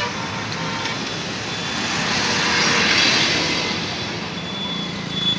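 A truck driving past close by: engine and tyre noise swelling to a peak about three seconds in, then fading as it goes by.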